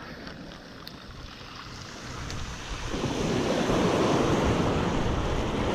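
Sea waves breaking and washing up a shingle beach, the rush of surf swelling up about halfway through.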